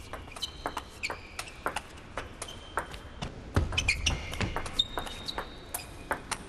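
Table tennis ball clicking off bats and table in quick exchanges, with short rubber-soled shoe squeaks on the court floor and a low thud about three and a half seconds in.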